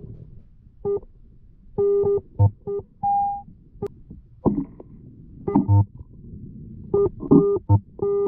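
Garrett AT Pro metal detector's target tones picked up underwater as the coil sweeps the riverbed: irregular short electronic beeps of differing pitch, some low and some mid, with one longer, higher tone about three seconds in, over a low underwater rumble.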